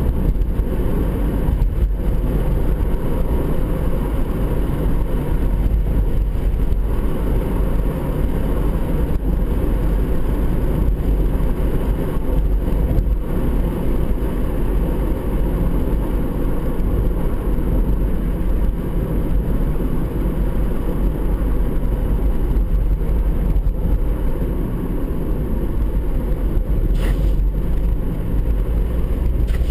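Steady road and engine noise inside a Honda CR-Z's cabin while cruising, mostly low in pitch and unchanging. A brief sharp sound cuts through near the end.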